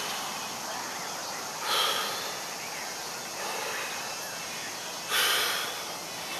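A man breathing hard, out of breath between deadlift reps, with two loud forceful exhalations about three and a half seconds apart.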